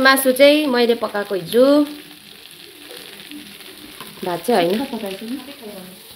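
Food frying and sizzling in a pan while it is stirred. Over it, in two stretches, comes a louder pitched sound that bends up and down like a voice: once in the first two seconds and again about four seconds in.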